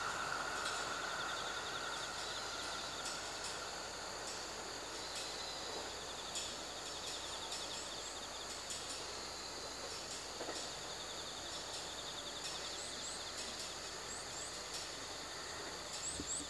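Insects chirring in a pulsing trill, with short high chirps and ticks over a steady outdoor background. In the first couple of seconds the rumble of a train that has just passed fades away.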